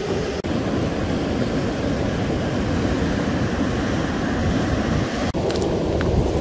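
Steady wind buffeting the microphone over the wash of ocean surf, with a couple of small clicks near the end.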